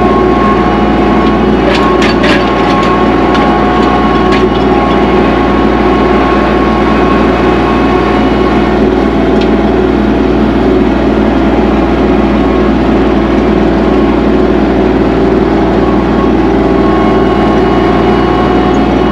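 Kubota tractor's diesel engine running at a steady speed. A few short clicks or knocks sound about two to four seconds in.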